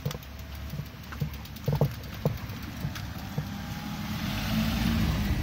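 Bicycle rattling over a ridged concrete ramp, with a few sharp knocks about two seconds in, then a rush of noise that swells near the end as it rolls out onto the road.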